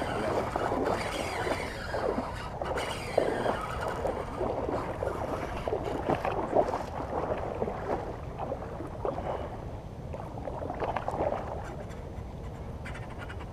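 River water lapping and sloshing against a boat's hull in an uneven, gurgling way, easing a little after about eight seconds.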